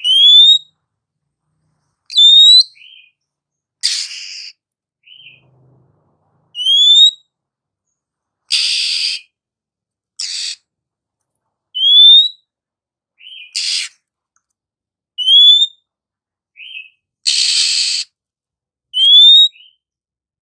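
Female Oriental magpie-robin (kacer) calling: short rising whistles every few seconds, some followed by a brief lower note. Harsh rasping churrs come in between, the longest near the end.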